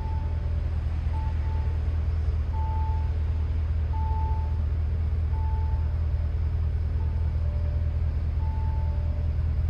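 Bentley Continental GT's twin-turbo V8 idling steadily, with a short, soft warning chime repeating about every second and a half.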